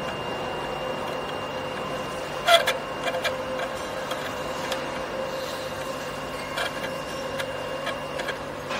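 Scattered light metallic clicks and taps as hands work small metal fittings at a vacuum pump's inlet flange, the sharpest about two and a half seconds in, over a steady background machine hum.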